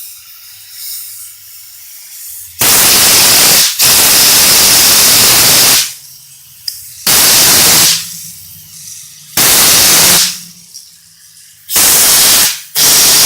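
Repeated blasts of compressed air hissing at a fidget spinner, about six loud bursts of a second or two each, with a low hum in the gaps between them.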